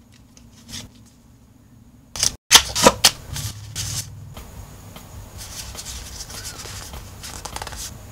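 A cardboard trading-card starter-deck box being opened, with a few sharp snaps and crackles about two and a half seconds in, then steady rustling and sliding of the paper manual sheets and cards being handled.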